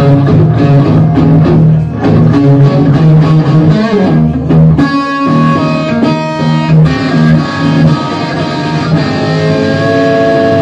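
Live rock band playing an instrumental passage on electric guitar and bass with a steady beat. About five seconds in the low end drops out briefly, and the last few seconds are held, ringing guitar notes.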